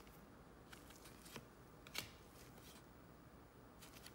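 Trading cards being flipped through by hand: a few faint, short card flicks and slides, the loudest about two seconds in.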